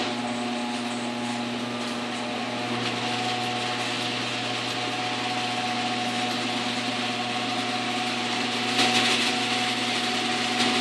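Garage door opener motor running steadily with a drive hum and a hiss of the door travelling, a little louder and rougher about nine seconds in.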